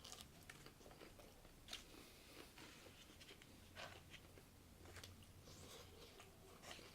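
Faint chewing and biting sounds of a person eating, a scatter of soft crackles and clicks over a low hum.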